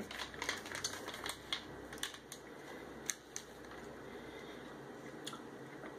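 Faint crinkling and clicking of a snack bag being handled and turned, a quick run of sharp ticks in the first few seconds, then only a few more over a low steady room hum.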